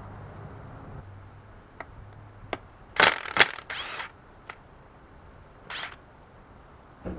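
Metal parts and tools being handled during a transfer case teardown: a few sharp clicks and knocks, with a louder clatter about three seconds in and a short rattle near six seconds.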